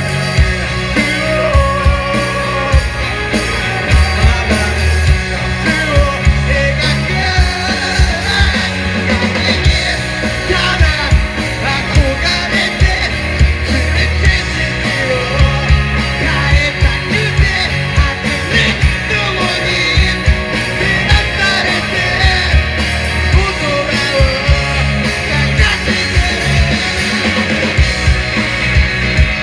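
Rock band playing live with a steady driving beat: pounding drums and bass under busy melodic guitar lines.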